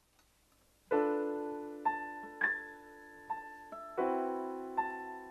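Piano introduction to a song, with no singing yet. After a near-silent first second a chord is struck, then a few single notes follow, and a second chord comes about four seconds in; each is left to ring and fade.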